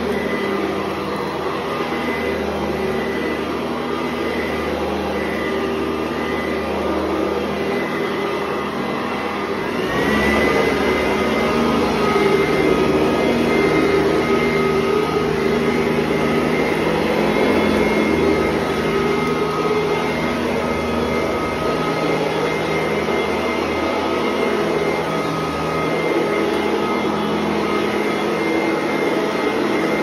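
Wide-head upright carpet vacuum cleaner running over carpet, a steady motor hum with a thin high whine. About a third of the way in it gets a little louder and the whine rises slightly in pitch, then holds steady.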